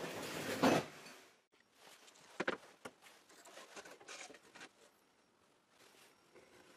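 A short burst of noise in the first second, then quiet handling sounds on a workbench: a sharp tap about two and a half seconds in and soft rustling and scratching as a plastic 3D-printed template is laid on plywood and traced around with a pen.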